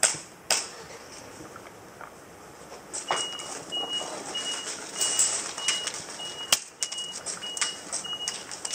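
Two sharp clicks at the start, then from about three seconds in a steady electronic beeping, one short single-pitched beep roughly twice a second, over rustling of gear and a few more sharp clicks.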